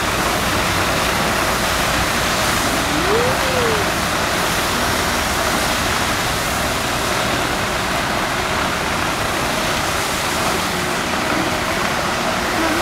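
Street sweeper truck working: its rotating brooms and machinery make a loud, steady rushing noise as it moves along the road. A short rising-then-falling tone sounds about three seconds in.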